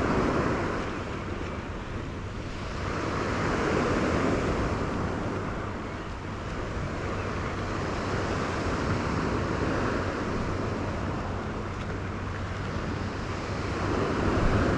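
Black Sea surf washing on the shore, swelling and fading every few seconds, with wind on the microphone.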